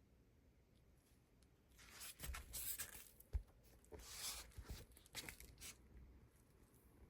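Faint rustling and scraping handling noise in two short spells, with one sharp knock about three and a half seconds in.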